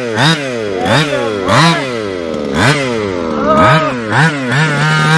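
HPI Baja 5SC RC truck's 25cc two-stroke petrol engine revving in repeated blips, the pitch shooting up and sagging back roughly once a second as the truck is driven in bursts, then holding a steady high pitch near the end.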